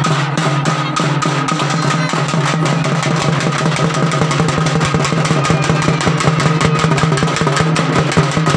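Music with drums beaten in a fast, steady rhythm under a held high tone.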